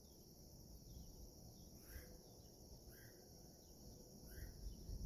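Faint outdoor ambience: a steady high chorus of insects such as crickets, with three short bird chirps a couple of seconds in, at about three seconds, and near the end.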